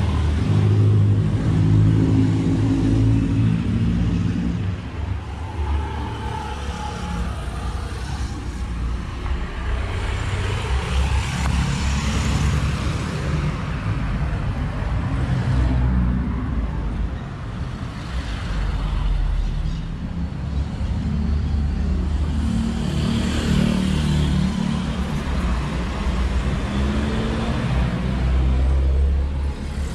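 City street traffic: cars and other vehicles driving by, with a low engine hum close by in the first few seconds and again through the last several seconds, and a vehicle swishing past about ten seconds in.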